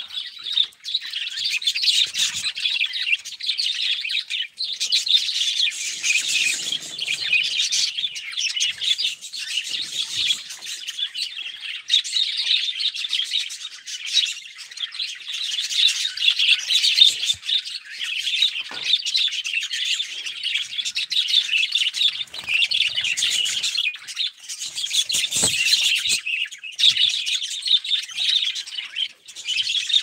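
A flock of budgerigars chattering, a continuous dense mix of warbling chirps and calls.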